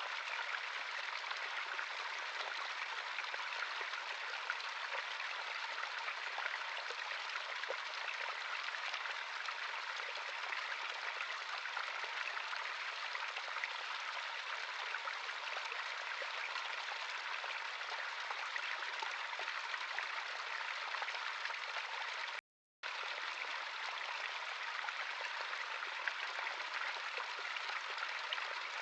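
Natural stream of running water, a steady rushing and babbling. About two-thirds of the way through it cuts out completely for a split second, then carries on unchanged.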